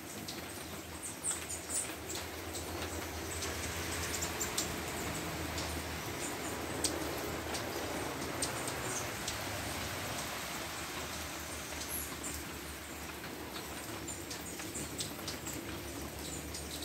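Hummingbirds at a nectar feeder giving many short, high chips and squeaks, scattered irregularly over a steady background hiss and low hum.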